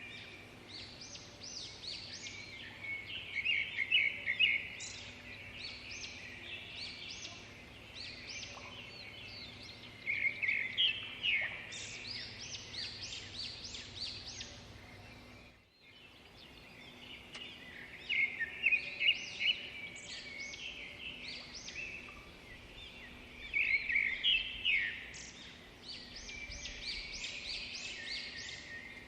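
Small birds chirping and twittering in bursts of quick, high calls every several seconds, over a faint steady hum.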